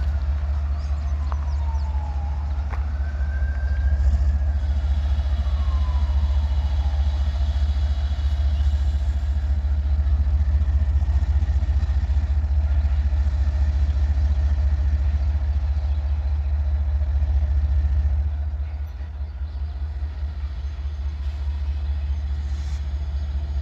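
Diesel locomotive engine running with a steady low rumble that eases off slightly near the end. Over the first several seconds a siren wails, falling then rising and falling again.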